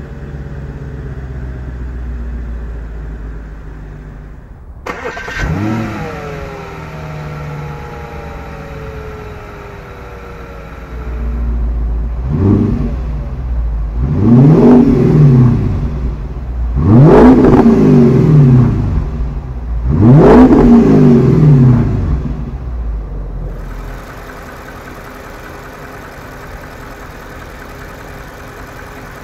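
Audi S5's 4.2-litre V8 through an AWE Tuning exhaust, idling and then revved. A short blip about five seconds in falls back to idle. A smaller rev comes near twelve seconds, then three long revs climb and fall back about three seconds apart before the engine settles to a steady idle.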